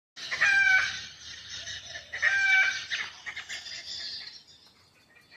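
Australian collared sparrowhawk calling twice, about two seconds apart, each call about half a second long, with a cockerel-like ring to it; fainter higher bird chatter follows.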